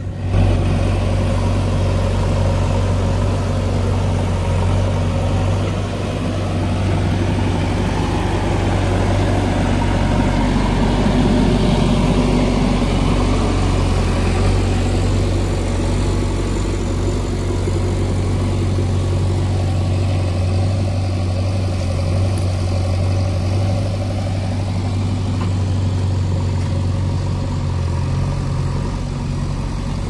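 Diesel engines of a JCB 3DX backhoe loader and a Swaraj 744 XT tractor running steadily, a low drone throughout, with a rougher, louder patch in the middle while the backhoe works.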